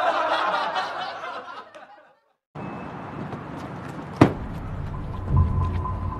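Laughter that fades out within the first two seconds, then a cut to steady outdoor background noise with a single sharp knock about four seconds in and a low rumble starting about a second later.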